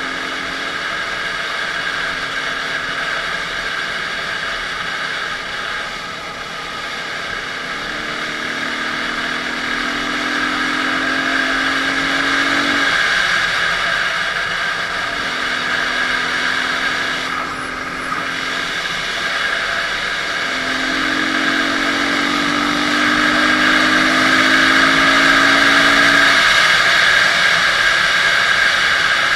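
Dirt bike engine running, its pitch climbing twice for several seconds at a time as it accelerates, steadier in between, over a loud steady rushing noise.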